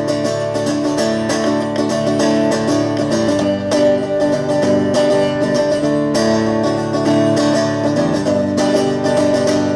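Guitar strumming chords steadily in an instrumental break between verses of a song, with no singing.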